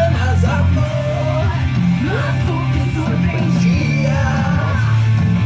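Rock music with a sung vocal over guitar and a steady bass line.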